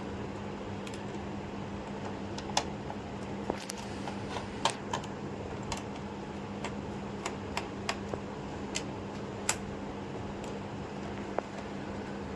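Light, irregular clicks and taps of a laptop's plastic parts being handled and fitted, over a steady low hum.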